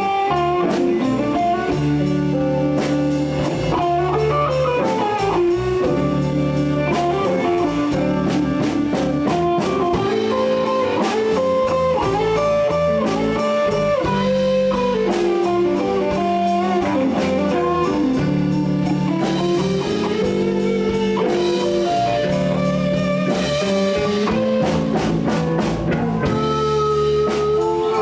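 Live blues band playing an instrumental break: guitar with bass and drum kit, a melodic line bending up and down over a steady groove.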